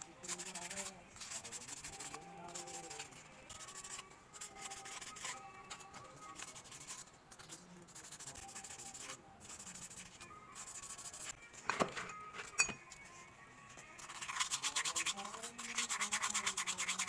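Hand rubbing and scrubbing a steel brake caliper piston and the caliper with a red abrasive sheet, a dry scraping rub. Two sharp knocks come about two-thirds of the way through, and quick, brisk rubbing strokes fill the last few seconds.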